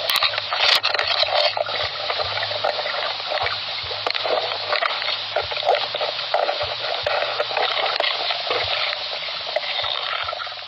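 Water sloshing and splashing right against the camera, a dense crackle of small splashes and bubbles, with a few sharp clicks in the first second.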